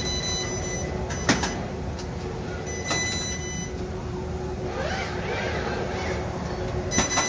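Steady din of a FANUC robotic spot-welding line with a constant hum, broken by sharp metallic bangs about a second in, around three seconds in, and twice in quick succession near the end.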